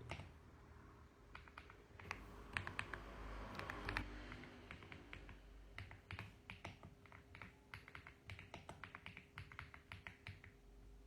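Mechanical keyboard typing: keys clacking in short irregular bursts, then a longer quick run of keystrokes in the second half.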